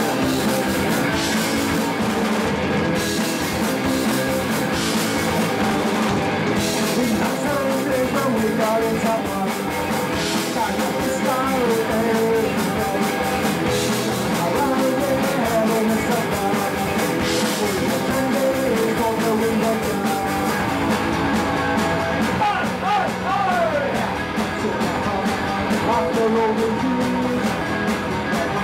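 Punk rock band playing live: distorted electric guitars, bass and drum kit with repeated cymbal crashes, at a steady loud level.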